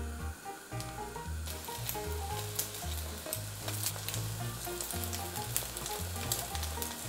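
Egg-soaked bread slices (French toast) frying in butter in a pan, sizzling with sharp crackling pops; the sizzle grows louder about a second and a half in.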